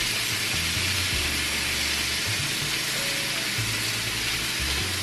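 Ground turkey sizzling in a hot skillet: a steady hiss, with a background-music bass line underneath.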